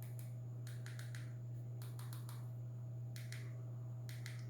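Keypad buttons on a Micromax X512 feature phone being pressed, short clicks in quick runs of two to five about once a second. A steady low hum underlies them.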